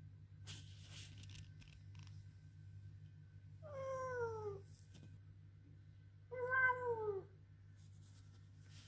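Ragdoll cat meowing in protest: two drawn-out meows about two and a half seconds apart, each falling in pitch, the second one louder.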